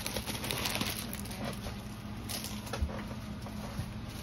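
Light rustling and scattered soft taps as a plastic-wrapped, rolled diamond-painting canvas kit is handled and set on a wooden table.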